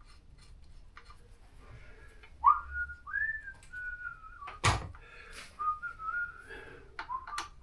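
A person whistling a short wandering tune from about two and a half seconds in, with one sharp click about halfway through and a few lighter taps.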